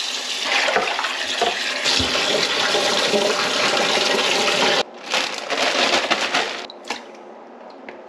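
Tap water running and splashing over a bowl of scaled perch as they are rinsed clean of cloudy water. The flow stops abruptly almost five seconds in, then water splashes again briefly.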